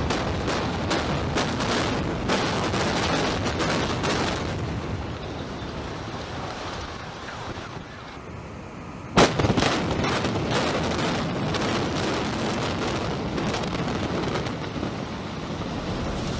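Building implosion: demolition charges go off in a rapid string of sharp bangs, followed by the long rumble of the collapsing structure. About nine seconds in a second implosion begins with a loud blast, another run of charges and more collapse rumble.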